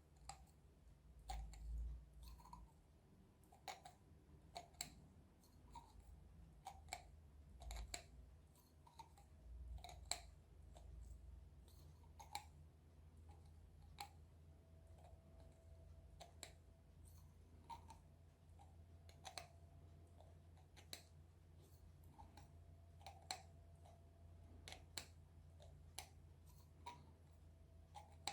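Faint, sharp clicks and taps, irregular at about one a second, from a knife being worked around the edge of a small 9-LED torch's head to free a lens and LED array held in by glue, over a low steady hum.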